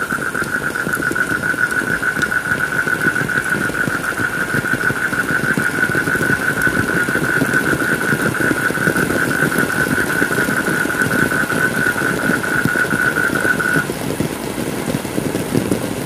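Steady heavy rain, with a steady high-pitched whine over it that stops suddenly near the end.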